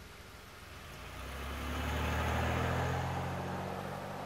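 A car pulling away and driving off: its low engine hum builds about a second in, is loudest midway, then slowly fades, with a steady hiss behind it.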